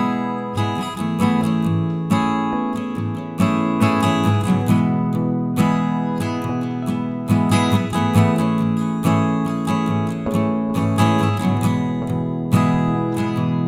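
Background music led by acoustic guitar, a steady run of plucked and strummed notes.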